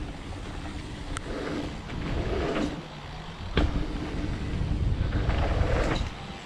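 Mountain bike ridden over a dirt trail: tyres rolling and wind rumbling on the helmet camera, with a few sharp knocks from the bike over bumps.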